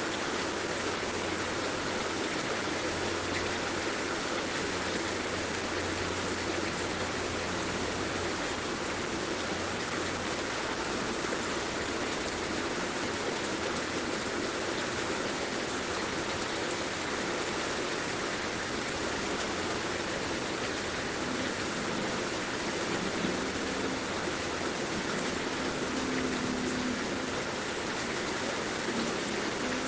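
Heavy rain falling steadily, an even, unbroken hiss of many drops.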